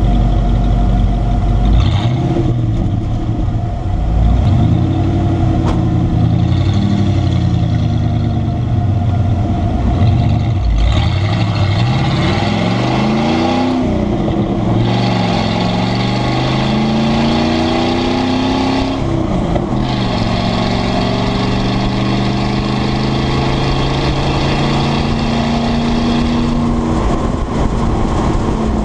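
1995 Ford F150's 302 (5.0 L) V8 running with the exhaust cutout open, so the exhaust bypasses the muffler. It pulls away with the pitch climbing and dropping back several times as it goes up through the gears of the five-speed, then holds a steady note at cruise.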